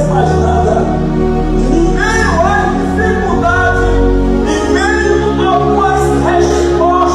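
Music with singing: sustained chords under a melody line that glides between notes.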